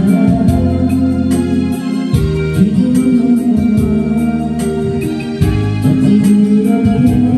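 Karaoke backing track led by electronic organ or synthesizer, with sustained keyboard chords over a steady beat.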